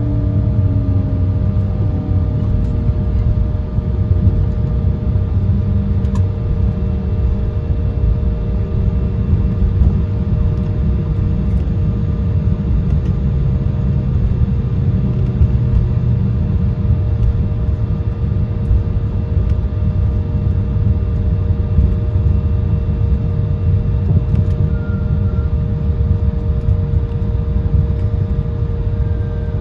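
Cabin noise of a jet airliner taxiing after landing: a steady low rumble from the idling engines, with a few thin whining tones held above it.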